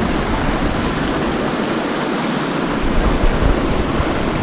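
Waterfall water rushing, a loud, steady hiss, with uneven low rumbles from the microphone.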